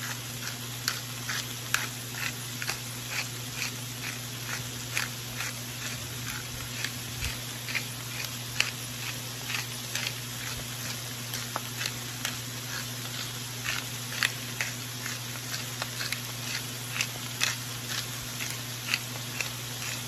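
Cabbage and bacon frying on high heat in a cast iron skillet: a steady sizzle with scattered crackles and pops, several a second, over a steady low hum.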